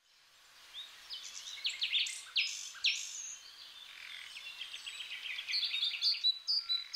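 Several birds chirping and singing together in a quick run of short calls and sweeps, fading in from silence at the start.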